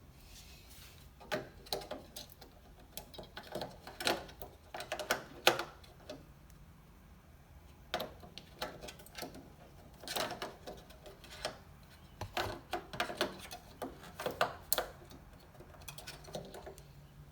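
Irregular clusters of light plastic and metal clicks and clacks: AA batteries being handled and pressed into the battery compartment of a steel keypad safe.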